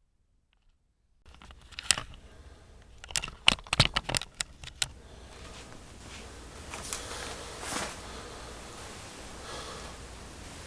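Silence for about a second, then a flurry of sharp clicks and knocks over the next few seconds, settling into a steady rustling hiss.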